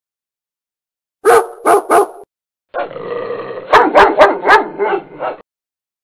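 Dog barking: three quick barks, a short pause, then a faster run of about six barks over a duller background that cuts off suddenly.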